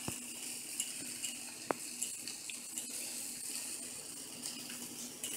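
Quiet steady hiss with a faint hum, broken by a few soft clicks as cheese slices are laid on buttered bread on a plate.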